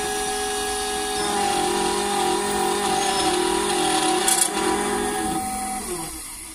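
SEC-E9 computerized key cutting machine milling a metal car key blade: the cutter spindle runs with a steady whine over the noise of the cut, then winds down near the end.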